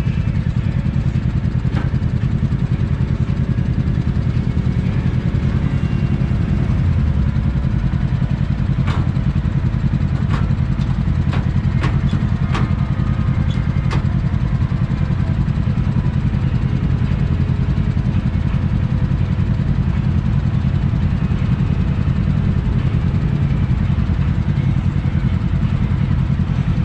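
A quad's engine idling steadily close by, a low even rumble with other off-road machines idling around it. A few sharp clicks come between about nine and fourteen seconds in.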